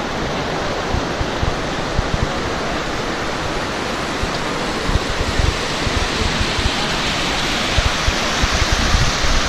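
Rushing water of a rocky river's rapids: a loud, steady rush, with irregular low buffeting from wind on the microphone.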